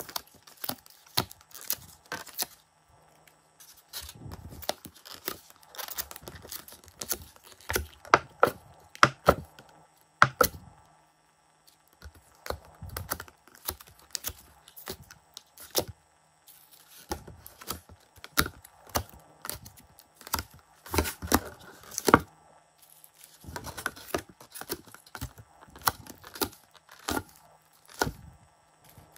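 Thin clear plastic blister tray crinkling and popping as soft clay discs are pressed out of its cups, in irregular runs of sharp crackles and clicks with short pauses between.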